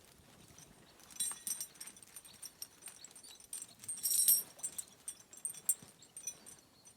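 Light metallic jingling and scattered clicks, loudest about a second in and again around four seconds in.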